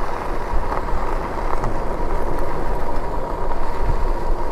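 Lectric e-bike being ridden along a trail: steady wind rumble on the camera microphone and tyre noise, with a thin steady whine above it and a few faint clicks.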